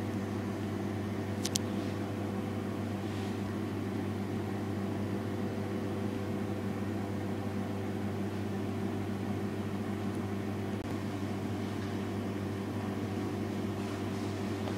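A steady low mechanical hum with an even, unchanging pitch, and a brief faint click about one and a half seconds in.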